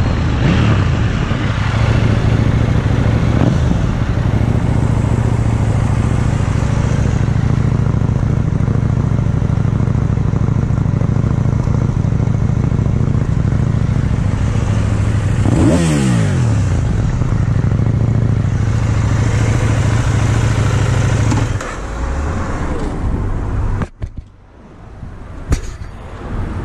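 Motorcycle engine running on the road with wind rushing over the microphone. About two-thirds of the way through, its pitch drops sharply as it slows, then it runs lower and quieter. Near the end the sound cuts out suddenly and a sharp knock follows.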